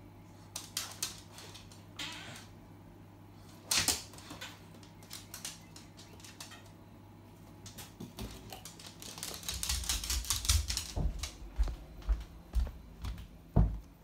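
Staffordshire bull terrier pulling a stick of celery out of a fridge: scattered clicks and rustles, one sharper click about four seconds in. From about ten seconds in comes a quicker run of clicking taps and low thumps as the dog walks off with it over the tiled floor.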